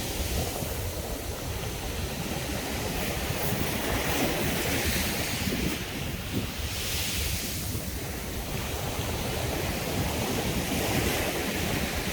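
Sea surf breaking and washing up a beach, a continuous rush that swells with each wave every few seconds. Wind buffets the microphone with a low rumble underneath.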